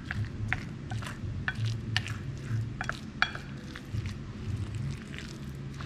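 Wooden chopsticks stirring minced pork and chopped shiitake mushrooms on a ceramic plate, knocking against the plate in quick, irregular clicks. A low steady hum sits underneath.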